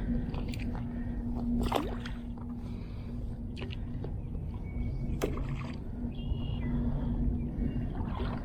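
Lake water sloshing around a wading angler, with a few short splashes over a steady low rumble.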